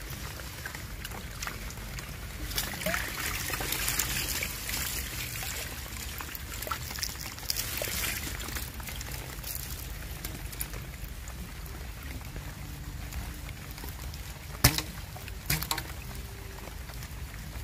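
Water trickling and pouring out of a bamboo-tube eel trap as it is lifted from the water and handled. Two sharp knocks come near the end.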